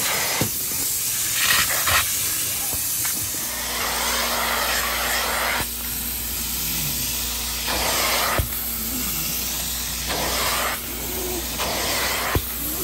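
A carpet-cleaning extractor's handheld upholstery tool spraying cleaning solution and sucking it back out of sofa fabric: a loud suction hiss that swells and drops with each pass. A few sharp clicks are heard along the way.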